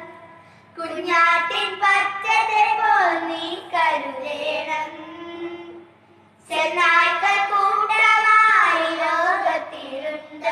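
Three children singing a Malayalam Christian devotional song together, in two long sung phrases with a short pause about a second in and another just past the middle.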